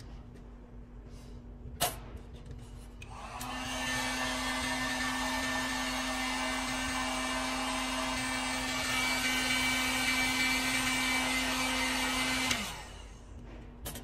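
A click about two seconds in, then an electric heat gun blowing steadily for about nine seconds to shrink heat-shrink tubing over a crimped butt connector splice, its motor humming under the rush of air. It is switched off near the end, the hum falling in pitch as the motor winds down.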